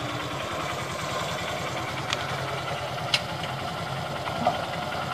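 Honda motorcycle engine idling steadily, with two short clicks about two and three seconds in.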